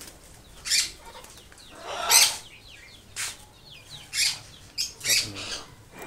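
Caged parrots in an aviary making short, harsh sounds, about six in six seconds, with faint chirps in between.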